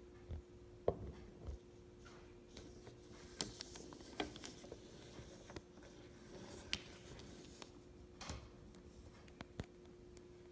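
Faint handling noise: scattered light clicks and taps at irregular intervals over a steady low hum.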